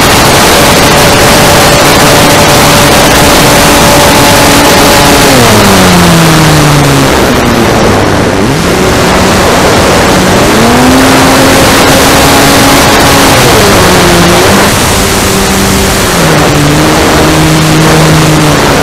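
RC airplane's motor and propeller, heard from a camera on the plane, droning over heavy wind rush on the microphone. The pitch falls steeply about five seconds in, climbs back about ten seconds in, and dips again a few times in the second half as the throttle is worked.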